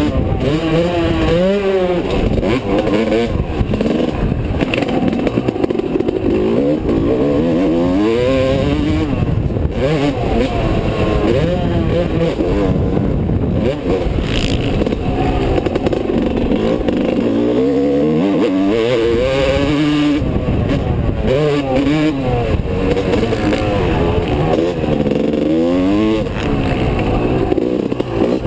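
Yamaha YZ250 two-stroke motocross bike engine under hard riding, its pitch rising and falling again and again as the rider twists the throttle and shifts, heard from a helmet-mounted camera with wind noise.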